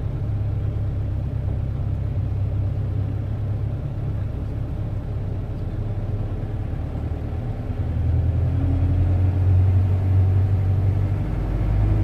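Vehicle engine and road rumble heard from inside the cabin while driving in slow traffic. The rumble grows louder about eight seconds in as the engine picks up.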